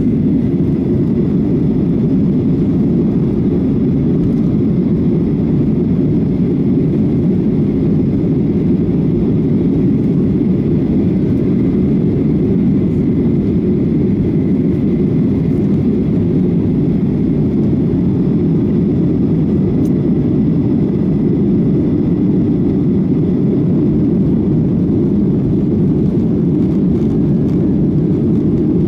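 Boeing 737-800's CFM56 jet engines running at a steady, unchanging level, a deep even roar.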